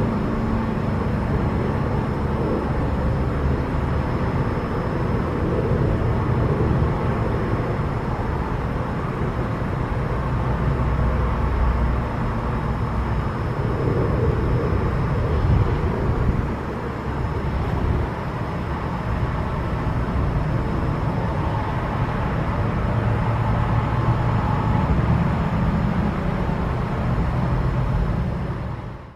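Steady road traffic noise, cars passing and the sound swelling and easing now and then, with a faint thin high tone held above it.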